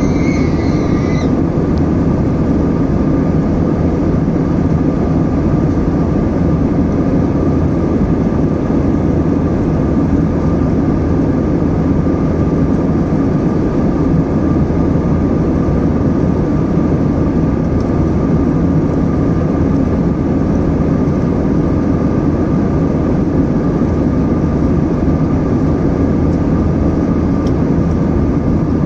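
Steady airliner cabin noise in cruise: a constant rush of engines and airflow with a thin steady tone running through it. A short high tone sounds right at the start.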